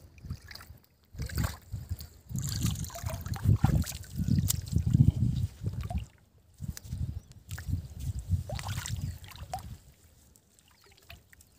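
Shallow, muddy water splashing and sloshing in irregular bursts as a wet cast net is hauled out of it, dying down near the end.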